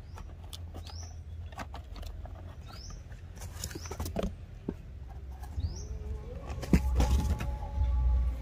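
A boxed plastic toy tractor set being handled and lifted out of a cardboard carton: scattered clicks, knocks and rubbing of cardboard and plastic, loudest near the end. A small bird chirps short rising notes every second or two, and a rising drone settles into a steady hum near the end.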